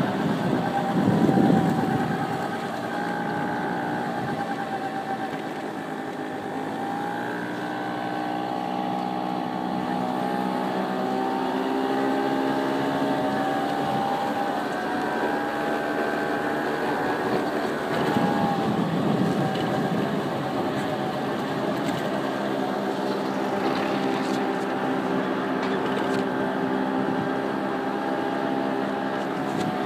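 Car engine and road noise heard from inside the cabin while driving, the engine note slowly rising and falling with speed, with two short louder swells of rushing noise.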